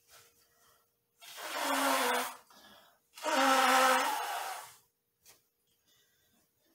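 A man breathing out hard twice with his voice in it: two long, loud, groaning sighs of exertion, the second a little longer, during a bodyweight calisthenics workout.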